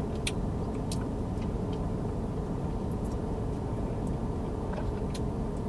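Steady low rumble with a faint hum, and a few faint clicks over it.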